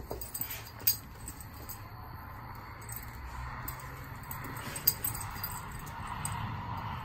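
Dog collar tags jingling and clinking as two dogs wrestle in play, with a couple of sharp clicks, one about a second in and one about five seconds in.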